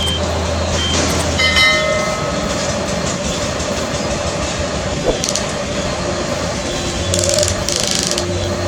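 Small electric motors and gearing of remote-control model excavators and a dump truck running steadily, with a brief pitched sound about a second and a half in and a few clicks.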